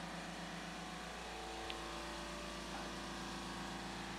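Steady machine hum in the shop, holding several steady tones without change, with one faint tick a little under two seconds in.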